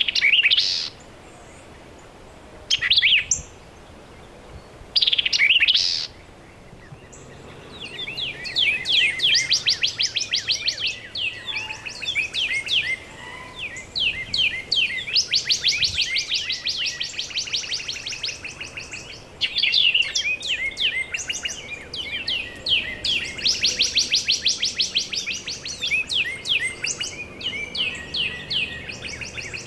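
Birdsong. A white-eyed vireo sings a short, loud phrase three times in the first six seconds. After that comes a long run of rapid, high chattering notes from a small songbird, broken by a few brief pauses.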